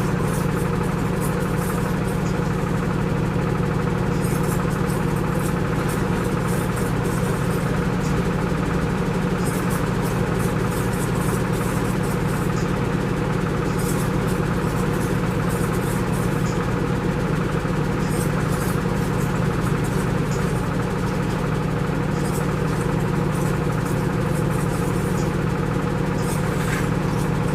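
Steady low mechanical hum at an unchanging level, with faint scattered high clicks over it.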